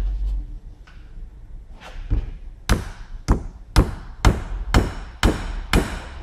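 Evenly spaced hammer blows on steel, about two a second, starting a little over halfway through after some metal handling. The blows drive a stack of old bearings down to press an ABS reluctor ring onto a driveshaft's outer CV joint.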